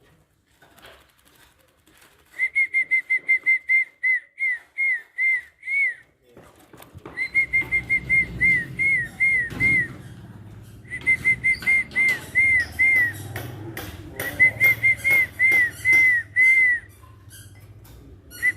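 A bird whistling in bursts of short, clear notes, each rising then falling, about five a second, with pauses between the bursts. A low rumble comes in about seven seconds in.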